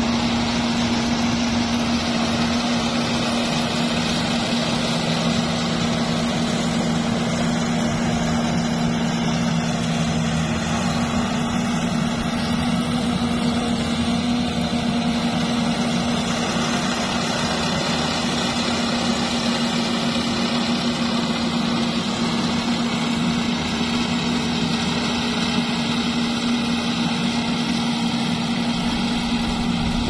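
Yanmar combine harvester running steadily while harvesting, its diesel engine giving a constant drone over the clatter of the machine; a second, lower tone joins for several seconds early on.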